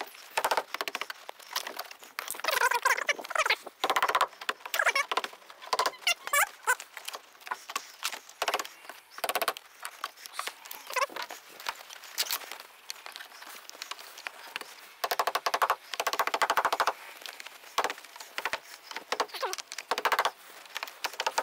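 A mallet tapping a rubber door seal back onto the metal flange of a car's door opening: many quick, light strikes in irregular runs, with short pauses between them.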